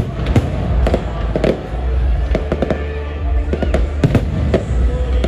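Aerial firework shells bursting overhead: a dense series of sharp bangs, several a second, over a steady low rumble.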